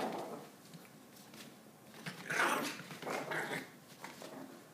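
Small Maltese dog making short, noisy vocal sounds in a few separate bursts, the loudest pair a little past halfway.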